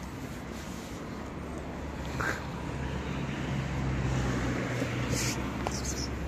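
Steady low hum of a motor vehicle's engine running nearby, growing a little stronger in the middle, with a few short higher sounds about two seconds in and again near the end.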